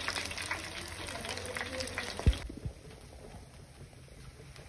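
Breaded pork fillets sizzling and crackling in hot oil in a pan. About two seconds in there is a low thump, and the sizzle stops abruptly, leaving quiet room sound.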